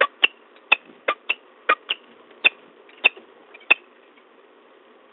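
Peregrine falcon chittering: a run of about a dozen short, sharp chip notes at an irregular pace, stopping a little over halfway through.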